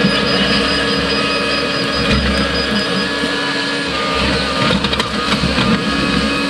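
Volvo ECR145EL excavator's diesel engine and hydraulics running steadily under work, with a few knocks about five seconds in.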